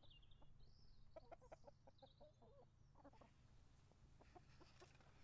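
Quiet: faint clucking of hens in short clusters, with a few high bird chirps, over a low steady hum. From about three seconds in comes the soft rustle of a large book page being turned.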